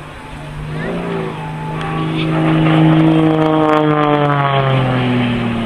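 A propeller aeroplane's engine flies past, growing louder to a peak about three seconds in. Its pitch then drops as it moves away.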